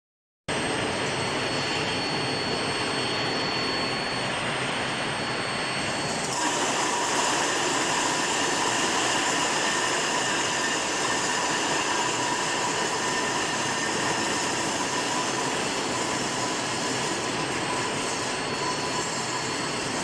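A steel bar induction heating line runs with steady industrial noise, a constant rushing sound with a few thin, steady high tones on top. It starts abruptly about half a second in, and the tones shift a little about six seconds in.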